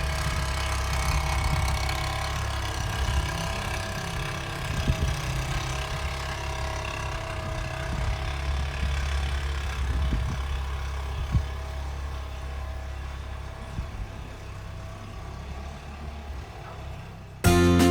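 A vehicle engine running steadily at low speed, with a few faint knocks over it. Music cuts in just before the end.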